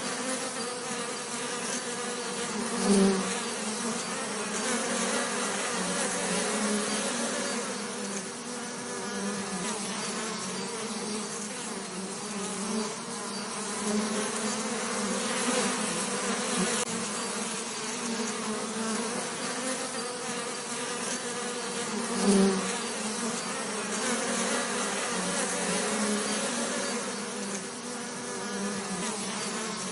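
Bees buzzing in a steady, low drone, briefly swelling louder twice, a few seconds in and again about three quarters of the way through.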